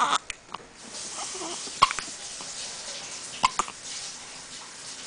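Hiccups: three short, sharp hics, about one and three quarter seconds apart.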